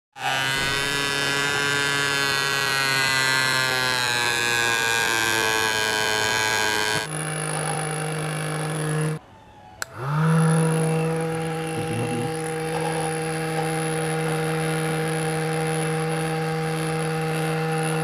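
Small electric motor of a homemade plastic-bottle vacuum cleaner running with a steady whine and hum. It cuts out briefly a little after nine seconds, then spins back up with a rising whine.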